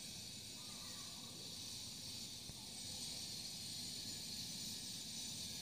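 Faint steady hiss with a low rumble underneath.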